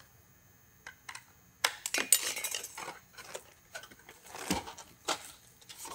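Sheet-metal roof flashing being handled and fitted by hand: scattered light metallic clicks and crinkling, busiest about two seconds in, with a few single clicks after.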